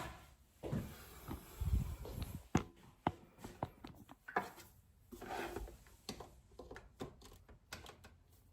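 Stainless steel electric kettle being handled: scattered clicks and light knocks, with a heavier low thump about two seconds in.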